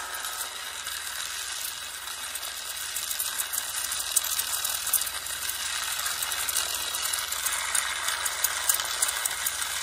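Lightsaber sound font playing from the Proffieboard-driven NeoPixel saber's speaker: the ignited blade's steady hum with a fine crackle running through it.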